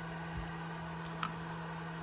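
Steady low hum with two faint light clicks about a second apart.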